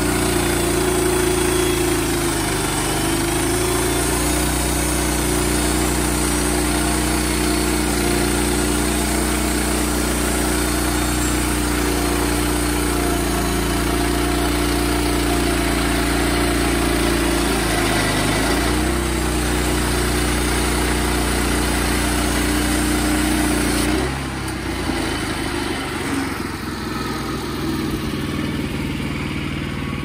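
Wood-Mizer LX portable band sawmill's gas engine running under load as the blade cuts through a cant, the head pushed along by hand. About 18 s in, the engine pitch sags briefly as the blade is fed too fast, then recovers. About 24 s in, the sound drops suddenly to a quieter, lighter engine note.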